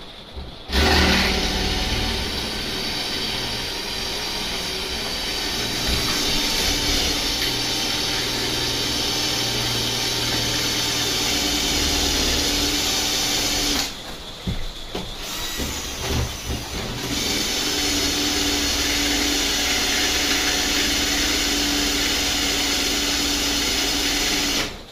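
A handheld power tool running with a steady whine in two long runs: about thirteen seconds, a short break of a few seconds with irregular knocking, then about eight seconds more.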